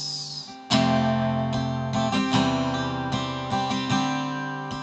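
Acoustic guitar strummed, one hard strum about a second in, then a steady strumming pattern with the chords ringing between strokes.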